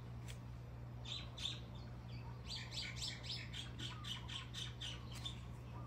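Songbird chirping: a few quick high notes about a second in, then a fast run of about a dozen chirps at some five a second, over a steady low hum.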